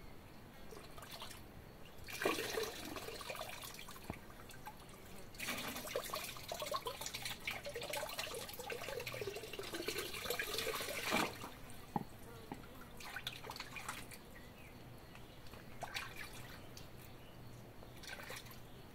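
Water poured from a plastic scoop over a dog's back, splashing and trickling down into a metal washtub of water. There are two long pours, about two and five seconds in, then a few brief splashes.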